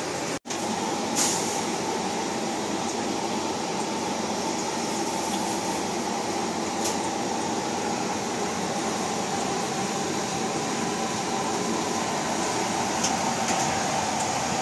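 Steady hissing noise of a deep-frying stall, with a few faint light clicks.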